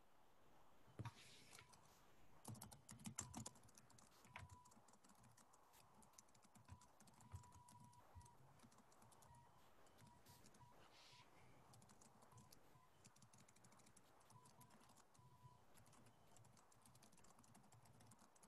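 Near silence broken by faint computer-keyboard typing, a quick run of small clicks that is busiest in the first few seconds and picks up again near the end.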